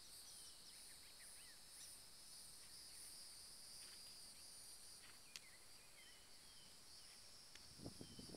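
Faint outdoor ambience: a steady high-pitched insect chorus with scattered short bird chirps, and a few soft low thuds near the end.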